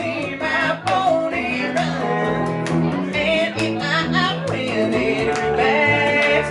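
Live country band playing an instrumental passage, with electric guitar.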